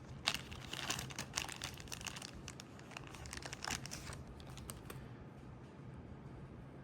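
Plastic packaging crinkling and clicking as it is handled, a flurry of crackles for about four seconds that then dies away.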